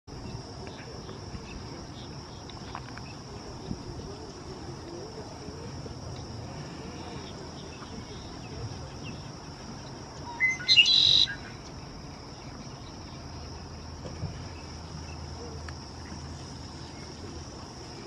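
Male red-winged blackbird giving its song once, a short burst of about a second about halfway through: a low note leading into a harsh high buzzy trill. A steady high hiss runs underneath throughout.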